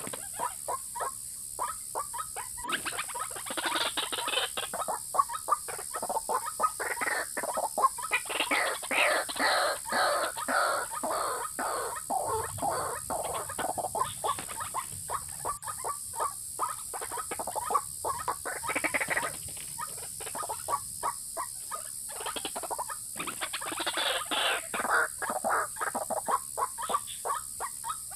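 White-breasted waterhen calls played as a trapping lure: rapid runs of short repeated notes, coming in bouts of a few seconds with brief pauses between.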